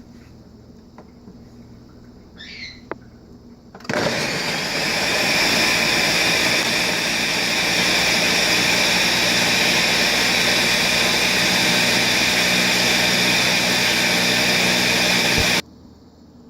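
Countertop blender switched on about four seconds in, running at a steady high speed while blending a fruit-and-romaine-lettuce smoothie, then switched off abruptly after about twelve seconds. A few faint clicks come before it starts.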